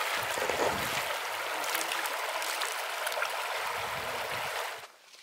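Shallow, stony river flowing steadily, a continuous rush of water that cuts off suddenly near the end.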